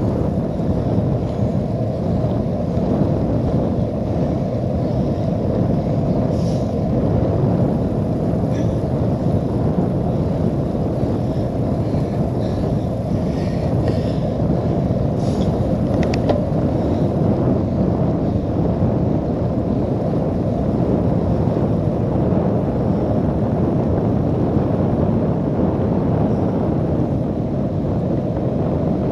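Steady rush of wind buffeting the microphone of a camera on a cyclocross bike riding at about 16 to 24 mph along a wet road.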